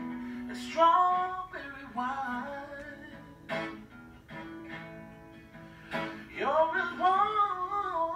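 A man singing while strumming an acoustic guitar, heard played back through a TV's speakers in a room. The singing swells louder about a second in and again near the end.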